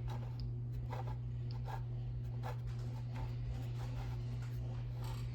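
A steady low hum with faint scattered light clicks and rustles, like small handling noises.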